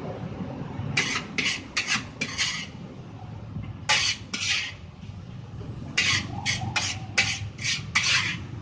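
Metal spatula scraping and tossing fried rice in a wok while stir-frying, in quick runs of short rasping strokes with pauses between them.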